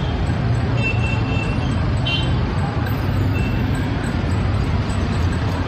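Busy street traffic: engines of motorbikes, auto-rickshaws and minibuses running close by, a steady low hum under a wash of road noise.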